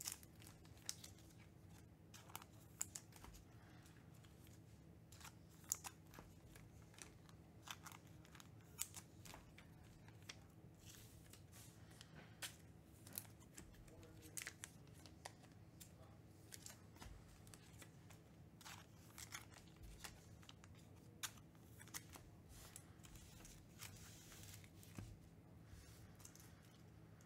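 Faint, irregular crinkles and clicks of plastic as trading cards are slid into soft penny sleeves, over a low room hum.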